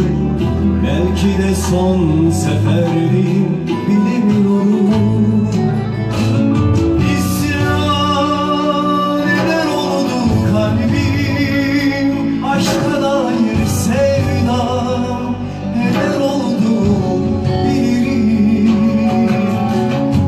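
Live song: a man singing with vibrato into a microphone, accompanied by electronic keyboard and bağlama, with a stretch of instrumental playing before the voice enters.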